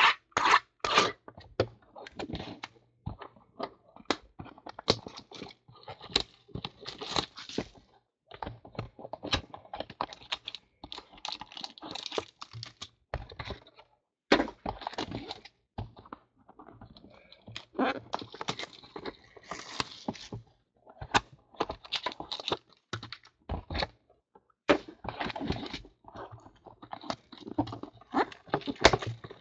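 Hands handling shrink-wrapped trading card boxes: irregular crinkling and tearing of plastic wrap, rustling cardboard and light thunks as boxes are moved and set down.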